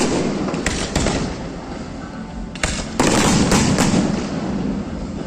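Fireworks going off: a run of sharp cracks and bangs, then a brief lull, then a dense flurry of cracks about halfway through, over a continuous rumble of booming shells.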